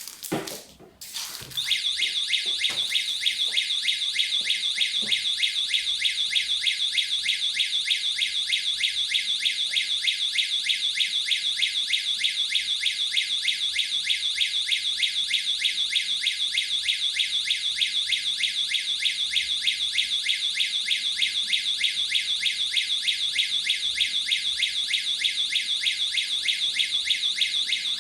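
High-decibel wireless alarm siren of a dual-beam infrared intrusion-sensor kit sounding: a loud, rapidly pulsing high-pitched alarm tone that starts a little under two seconds in, after a few brief clicks, and then goes on without a break.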